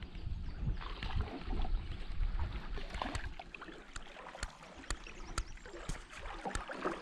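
A canoe being paddled: paddle strokes swishing through the water with drips, and a few sharp knocks, most of them in the second half, over a low rumble.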